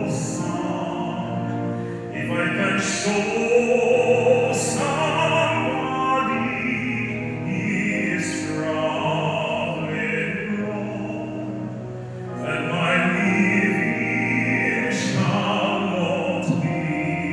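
A solo singer performing in an operatic style, holding long sung notes.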